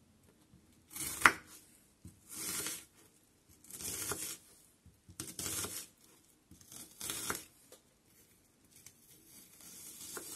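A knife slicing down through half an onion onto a wooden cutting board: five crisp strokes about one and a half seconds apart, the first ending in a sharp knock on the board, then a softer, longer cut near the end.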